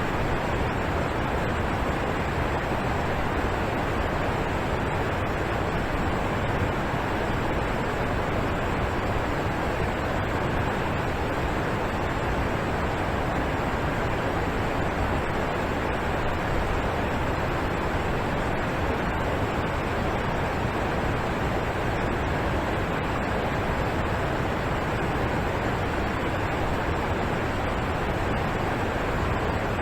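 Waterfall rushing: steady, unbroken falling water, full and deep.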